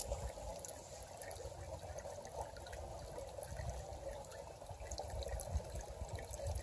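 A creek trickling and flowing steadily.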